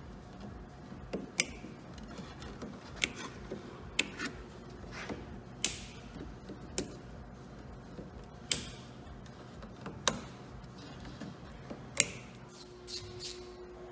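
Irregular sharp clicks and snips, about a dozen spaced a second or more apart, the loudest three near the middle and end: plastic cable ties being fastened around a truck headlight wiring harness and their tails cut with side cutters.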